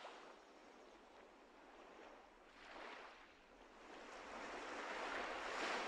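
Faint ocean waves washing, with a short swell about two and a half seconds in and a longer one building over the last two seconds.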